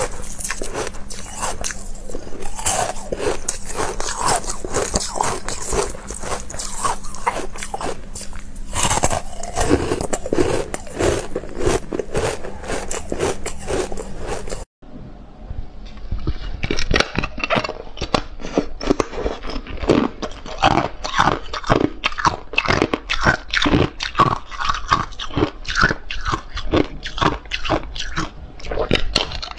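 Close-up crunching and chewing of ice: pieces of carbonated ice bitten and crushed between the teeth in rapid, dense crunches. Midway there is a brief break, then a thin frosted sheet of ice is bitten and crunched.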